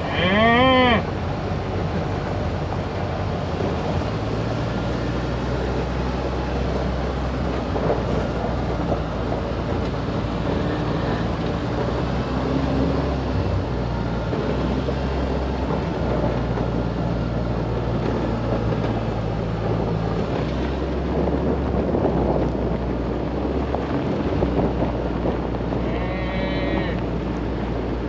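A cow moos loudly in the first second, one rising-and-falling call, over the steady drone of a side-by-side UTV engine driving on a gravel road.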